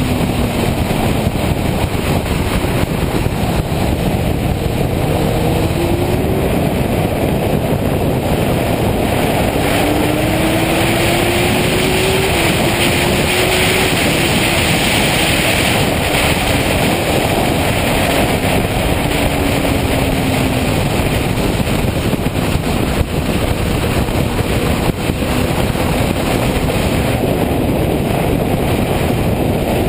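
Suzuki GSX-R sport bike's inline-four engine running at track speed under heavy wind rush on the bike-mounted camera, its pitch climbing and falling as the bike accelerates and slows.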